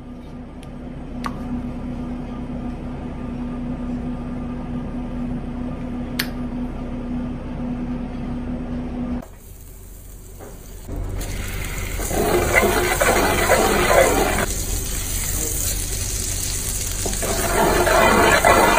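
A steady hum with a couple of sharp knife taps on a plastic cutting board. Past the middle, butter hisses softly in a frying pan, then squid fries loudly in the hot butter, the sizzling swelling and easing in waves.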